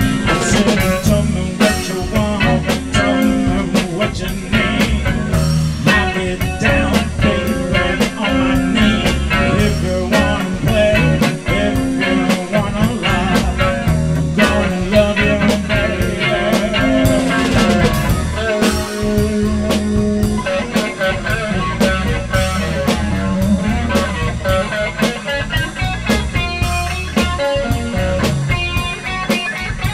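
A blues-rock band playing live: electric guitar over drums and a steady low end, in an instrumental passage with no singing.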